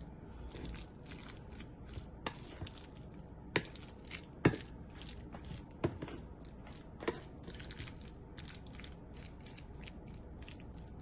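A slotted wooden spatula mashing and stirring guacamole in a wooden bowl: wet squishing with frequent small clicks, and a few louder knocks of wood on wood around the middle.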